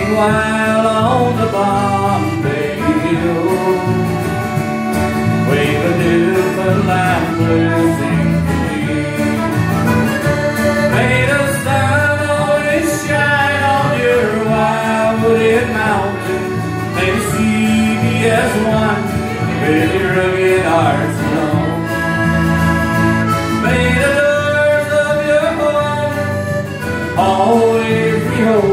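Live folk music from an accordion and two guitars: the accordion carries the melody over steadily strummed guitar chords, an instrumental passage between sung verses.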